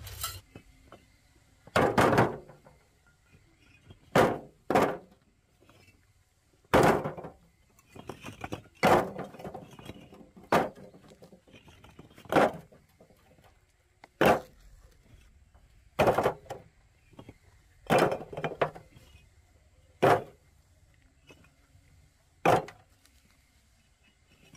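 A series of sharp knocks, about a dozen, roughly one every two seconds, some coming in quick pairs.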